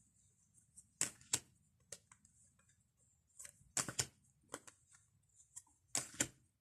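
A deck of fortune-telling playing cards being shuffled by hand. It makes a few short, sharp snaps, several of them in quick pairs, with pauses between.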